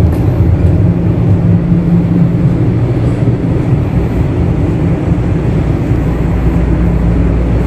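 Interior running noise of a moving TTC Toronto Rocket subway train: a loud, steady rumble with a low hum that drops lower about two-thirds of the way through.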